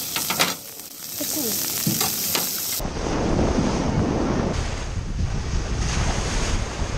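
Seafood sizzling on a hot plancha griddle. About three seconds in it cuts to wind buffeting the microphone over breaking surf.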